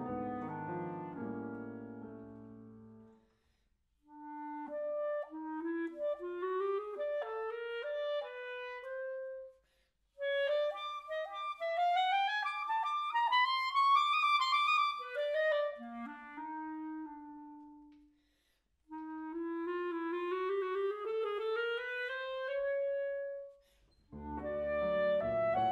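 Piano chords fading away, then a solo clarinet playing several unaccompanied phrases that mostly climb in pitch, with short pauses between them. The piano comes back in with chords near the end.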